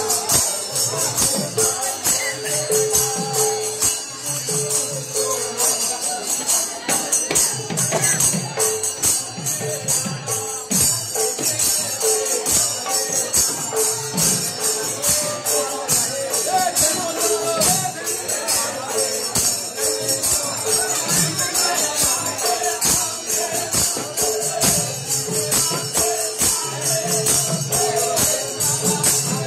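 Manipuri kirtan music: kartal hand cymbals clashing in a fast, steady rhythm over pung drum strokes, with group singing.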